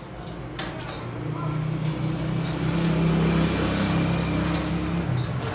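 A motor vehicle engine running, getting louder over the first three seconds and then holding steady.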